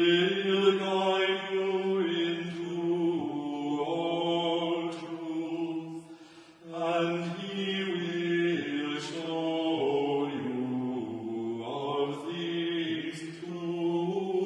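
Men's voices singing unaccompanied liturgical chant in long held notes that step from pitch to pitch, with a brief pause for breath about six seconds in.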